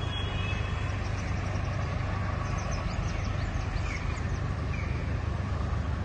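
Steady low outdoor rumble, with a few faint high chirps in the middle.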